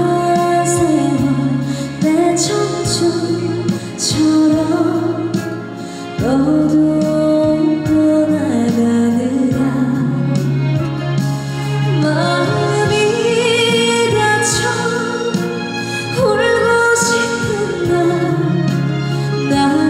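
Live Korean trot ballad: a girl's clear singing voice holding long, wavering notes over a backing track.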